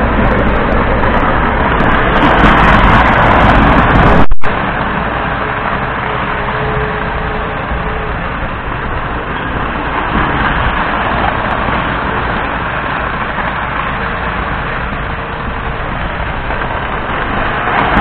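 Postwar Lionel O-gauge train, a Lionel 2020 steam turbine locomotive pulling freight cars, running around the track with a steady, loud running noise. It peaks and drops out for an instant about four seconds in.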